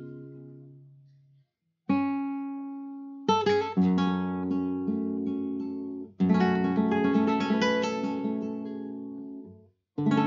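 Acoustic guitar playing slow strummed chords, each left to ring and die away, with brief silences between them: one about two seconds in, two quick strums near three and a half seconds, another past the middle and one more near the end.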